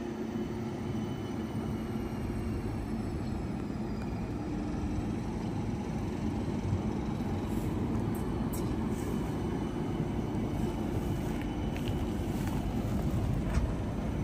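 CAF Urbos 100 light rail tram passing close by at steady speed: a continuous rumble of steel wheels on rail with a low hum and a faint electric whine that slowly shifts in pitch. A few light clicks come in the second half.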